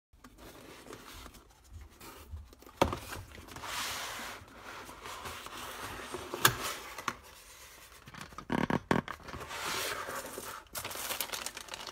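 Cardboard product boxes being handled and a box lid opened: scraping and rustling of cardboard, with a few sharp knocks, the loudest about six seconds in, and the rustle of plastic bags near the end.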